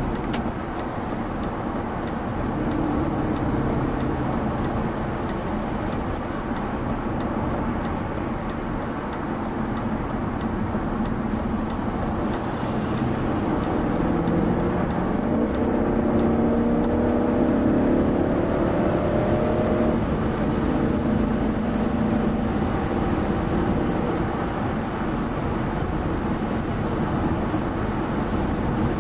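Cabin noise of a 2001 BMW 740i (E38) at highway speed: steady tyre and road noise under the low hum of its V8. About halfway through, the engine note rises for several seconds as the car pulls harder, then settles back.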